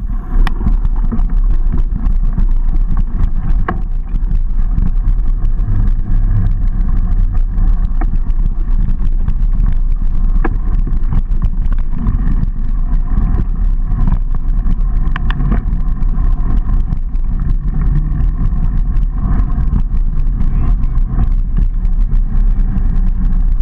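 A mountain bike rolling over a rough dirt trail, heard on a camera riding with it: a loud, steady wind rumble on the microphone with tyre noise and frequent small knocks and rattles from the bike over bumps.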